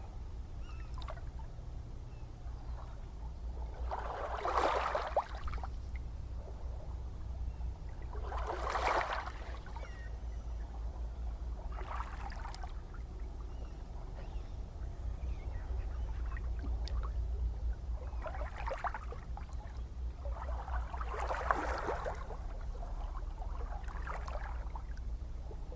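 Gentle ocean waves at night: a steady low rumble of surf, with small waves splashing and washing in about six times at uneven intervals.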